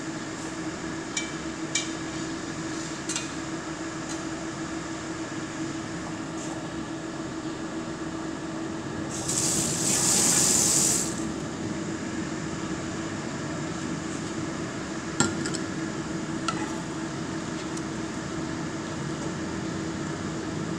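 Steady hum of a kitchen range-hood exhaust fan, with a few sharp clinks of dishes and utensils and a loud hiss lasting about two seconds midway.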